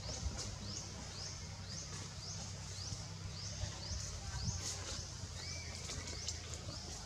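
High, quick rising chirps repeated evenly about twice a second, from a small calling animal, over a steady low rumble.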